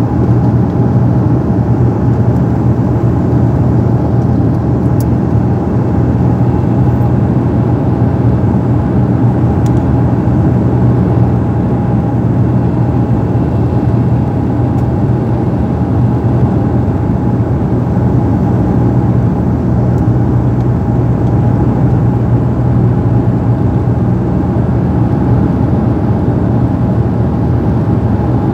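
Steady drone of a Dash 8 turboprop's engines and propellers heard inside the passenger cabin: a constant low hum with a steady higher tone over it and a rush of noise.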